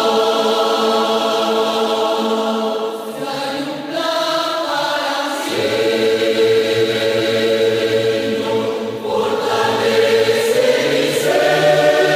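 Church choir singing a Spanish praise song in slow, held chords that change every few seconds.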